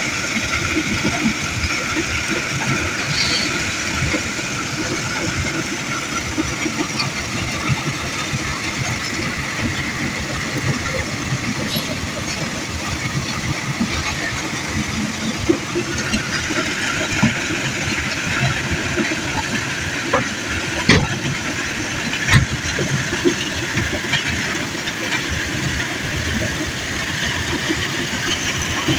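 Heavy diesel dump truck engines running steadily, with a few sharp knocks and clanks scattered through.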